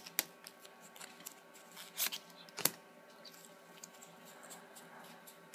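Faint handling of a stack of Pokémon trading cards being sorted through by hand, with a few light taps and flicks, the sharpest about two seconds in.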